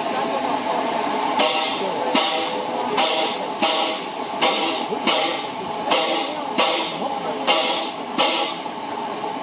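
Narrow-gauge steam locomotive working slowly, its exhaust chuffing about once every 0.7 s with hissing steam from around the cylinders. The chuffs begin about a second and a half in and stop about a second before the end.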